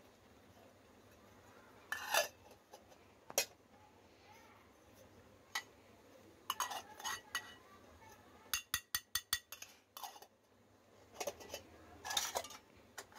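Miniature thin-metal toy kitchen bowls, plates and pots clinking and clattering against each other as they are handled and set down. Scattered sharp knocks, with a quick run of about six light taps around the middle and a cluster of clatter near the end.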